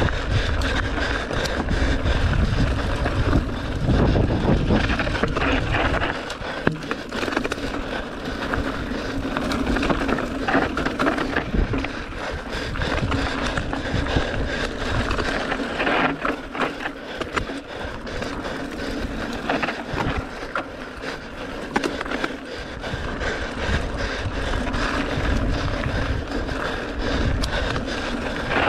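Mountain bike rolling down a rocky dirt singletrack: tyres crunching over dirt and loose stones, with the chain and frame rattling on the bumps. A heavy low rumble is strongest in the first six seconds.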